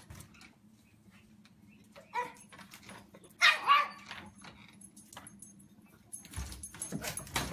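A dog barking: one short bark about two seconds in, then two louder barks in quick succession about a second later. Near the end, clattering and scraping as a screen door is pawed open.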